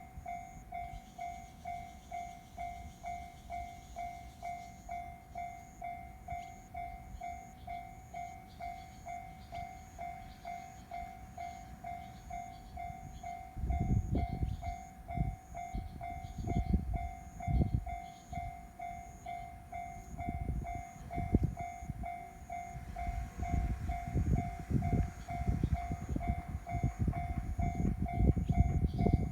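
Japanese level-crossing warning bell ringing in an even, repeating pulse. About halfway through, a JR Tokaido Line train starts passing with a low rumble and heavy, irregular thuds of its wheels over the rail joints, louder toward the end, while the bell keeps ringing.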